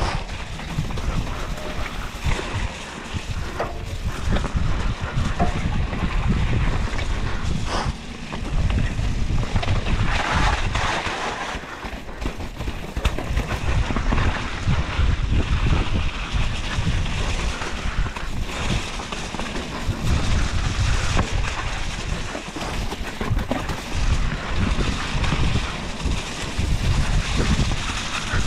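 Wind buffeting the microphone over the tyre noise of a mountain bike riding a muddy, snowy trail, with scattered knocks and rattles from the bike.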